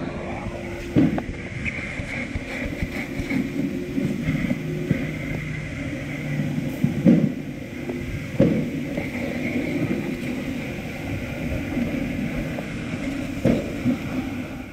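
Vacuum cleaner running steadily with a faint whine while its ribbed hose nozzle sucks along the seat base and door sill, with a few knocks as the nozzle hits the trim.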